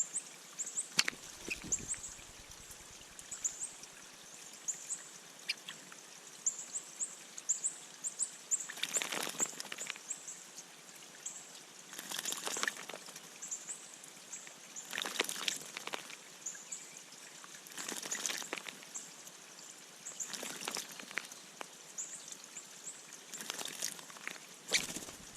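A bird splashing in a bird bath, in short bursts of water noise about every three seconds. Quick, thin, high chirping goes on throughout.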